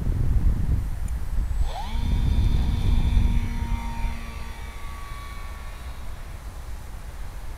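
Multiplex FunCub electric RC model plane's motor and propeller spooling up with a quick rising whine about two seconds in, then holding a steady whine for take-off and climb-out. The whine fades and drops slightly in pitch as the plane flies away. Wind rumbles on the microphone throughout.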